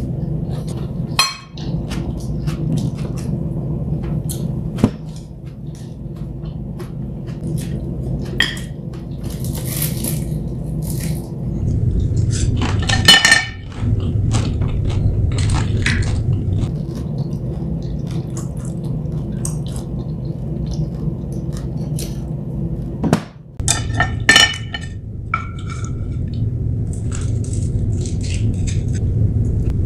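Chopsticks clicking and clinking against plates, with eating sounds, over a steady low hum.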